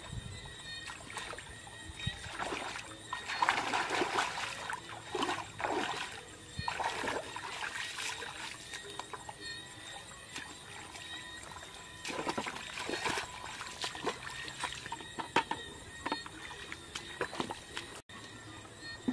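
Splashing and sloshing of muddy shallow water in irregular bursts, from someone wading and working through it by hand.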